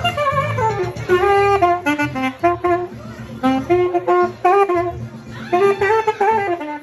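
Alto saxophone playing a jazzy melody of short and held notes, with a wavering held phrase near the end.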